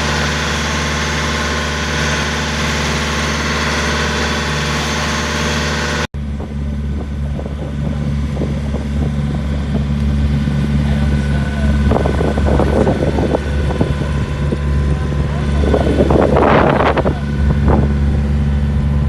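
Tour boat's engine running steadily with a low drone, broken by an abrupt cut about six seconds in, then running on, with a few brief louder rushing sounds later.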